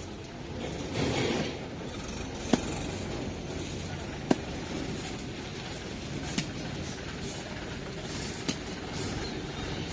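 Four sharp chopping knocks about two seconds apart as a catla fish is cut up, over a steady background rumble.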